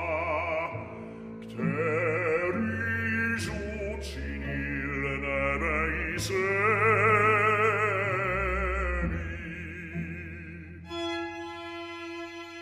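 An operatic bass voice sings with a wide vibrato over instrumental accompaniment. Near the end the singing stops and a steady held instrumental chord follows.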